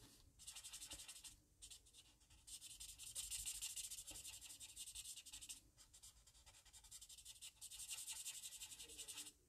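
Stampin' Blends alcohol marker tip scratching over cardstock in quick back-and-forth strokes, in four or so stretches with short breaks. The light olive green is being worked over the dark to blend the shading.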